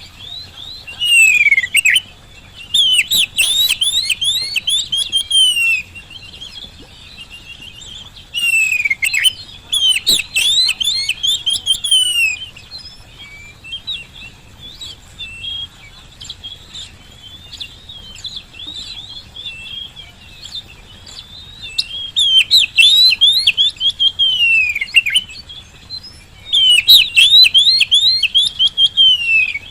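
Oriental magpie-robin singing: four loud phrases of a few seconds each, packed with fast rising and falling whistles and trills, with quieter chirping between them.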